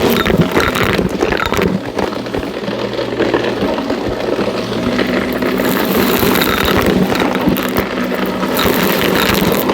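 Shark NV351 upright vacuum cleaner running with a steady motor hum and air hiss that swells and fades, with crunchy crackling clicks of debris being sucked up.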